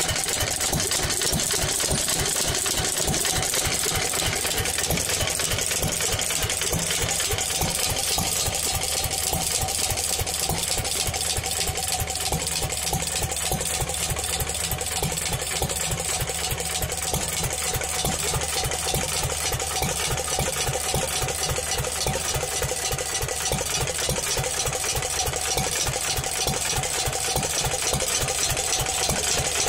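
Horizontal Pilter stationary engine running steadily, its regular firing beat unbroken throughout.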